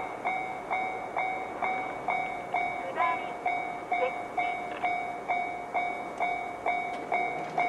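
JR-standard electronic level-crossing warning bell ringing: a bright two-pitch 'ding' repeating evenly a little over twice a second, the alarm of a crossing warning that a train is approaching.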